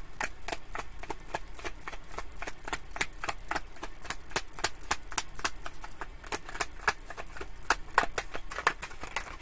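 A deck of tarot cards being shuffled by hand: a steady run of quick, crisp card clicks and flicks, several a second.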